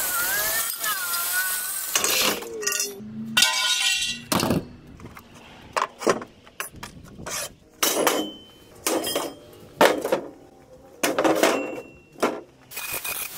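Cordless portable band saw cutting through rusty steel channel, its blade giving a wavering whine for about the first two seconds. Then a series of sharp metallic clanks as the steel pieces are handled and set down.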